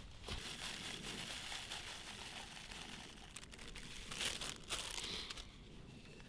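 Crinkling and rustling, as of plastic or packaging being handled, made up of many small sharp crackles, with a louder patch about four seconds in.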